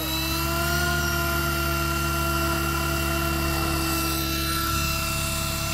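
KDS 600 radio-controlled helicopter spooling up on the ground with its rotor turning: a steady motor and gear whine that rises slightly in pitch in the first second, then holds steady.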